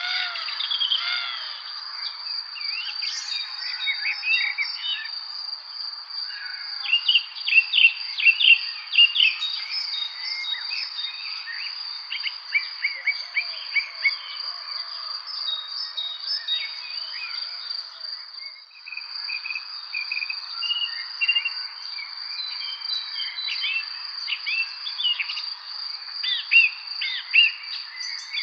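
Songbirds chirping and singing in many short, quick calls, over a steady high-pitched insect drone that runs without a break.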